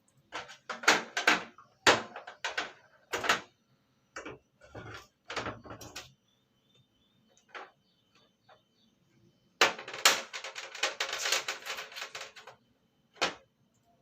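A series of sharp clicks and knocks as washing-machine parts and bolts are handled during reassembly, with a dense run of rapid rattling clicks about ten seconds in.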